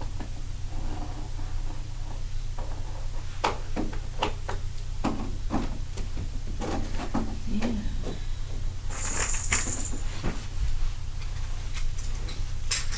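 Small hard objects being handled and knocked together: a run of light clicks and clatter, then a short hiss about nine seconds in, over a steady low hum.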